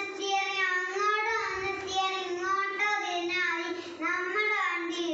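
A young child singing, one high voice holding long notes that slide from pitch to pitch.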